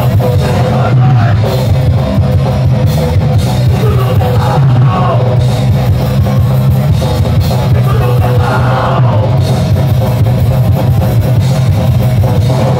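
Live rock band playing loudly through a festival PA: a drum kit and distorted electric guitar in a dense, continuous wall of sound.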